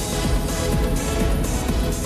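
Electronic dance music with a steady beat of about two a second, played as a hockey team's goal-celebration song.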